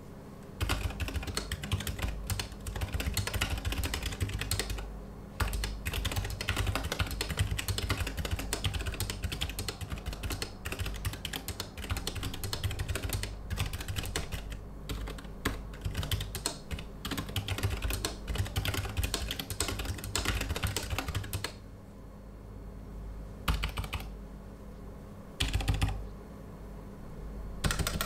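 Typing on an Alice-layout custom mechanical keyboard in a POM case with ZealPC Zilent V2 67 g silent tactile switches, keystrokes in quick continuous runs. About three-quarters of the way through the steady typing stops, leaving only a few single key presses.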